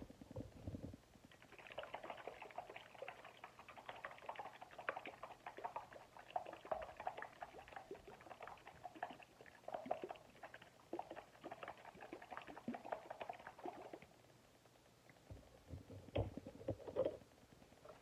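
A small clip-top glass jar of water-based clear gloss and powdered food colouring shaken by hand to mix the colour in: a faint, fast, steady rattling and sloshing that stops a few seconds before the end, followed by a few knocks.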